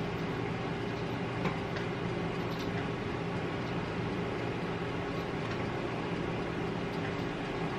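A steady low hum with an even hiss over it, and a faint click about one and a half seconds in.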